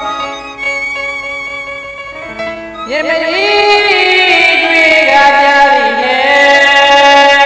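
Burmese song: instrumental accompaniment of held notes, with a singing voice coming in about three seconds in, its notes sliding and wavering.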